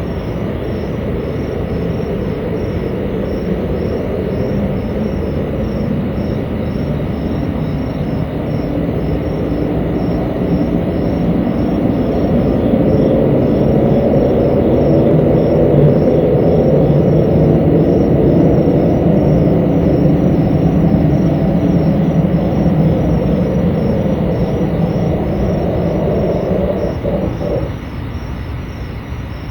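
An unidentified loud, continuous low rumbling drone that swells gradually and then drops back near the end, with a rhythmic high chirping running faintly above it.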